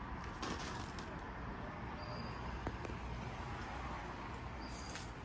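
Faint outdoor background: a steady low rumble like distant traffic, with a few light clicks and two short high chirps, one about two seconds in and one near the end.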